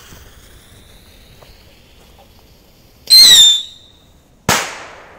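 Small firework rocket going off: a faint fuse hiss, then about three seconds in a loud, shrill whistle with a slightly falling pitch as it shoots up, and about a second and a half later a single sharp bang as it bursts.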